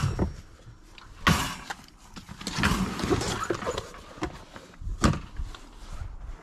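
Gear being handled in the cargo area of an open car hatchback: a few sharp knocks, about a second in and again about five seconds in, with rustling and shuffling between them.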